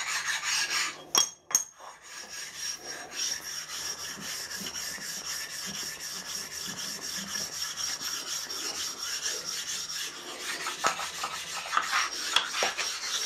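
Flat sharpening stone rubbed back and forth along a milling machine's table in repeated scraping strokes, stoning off small burrs and raised ding marks. It pauses briefly about a second and a half in.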